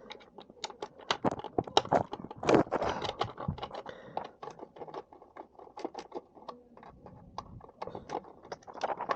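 Hand screwdriver clicking and scraping in the screws of a plastic RC truck body as they are worked out by hand, with irregular small taps and a longer stretch of scraping about three seconds in.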